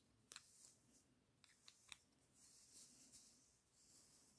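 Near silence with a few faint clicks, once just after the start and a quick cluster near two seconds in, from handling a plastic pen-style screwdriver as its cap is pushed down.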